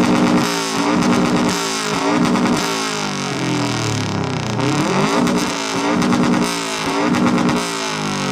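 2003 Subaru WRX's turbocharged flat-four engine revved hard over and over through its aftermarket exhaust, about once a second, the pitch climbing and dropping back each time.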